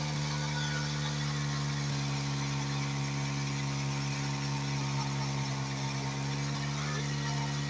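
Motorcycle engine held at steady revs while the rear wheel spins in place on wet grass and mud: a stationary burnout that heats the tyre. The engine note stays level throughout, over a rushing hiss from the spinning tyre.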